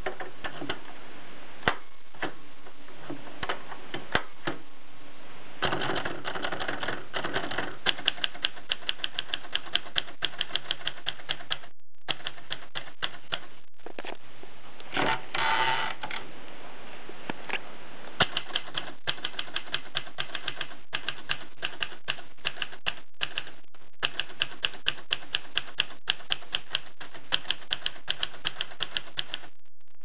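Tippa portable manual typewriter being typed on: sharp key strikes, scattered at first, then in quick runs with short pauses. About halfway through, the carriage is pushed back with the return lever, a second-long sliding sound, before the typing goes on.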